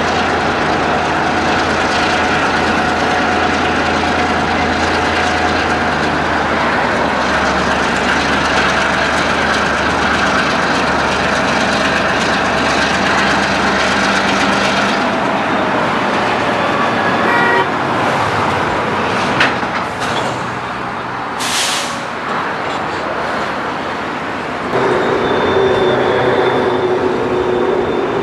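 Norfolk Southern diesel switcher locomotive running as it moves along a cut of hopper cars, a steady low engine drone under general yard noise. Near the end a steady, pitched tone sets in.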